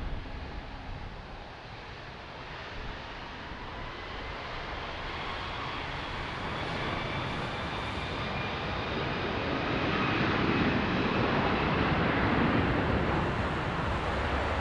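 Jet airliner's engines passing close by: a rush of engine noise with a faint whine that builds steadily, loudest about ten to twelve seconds in, then eases a little.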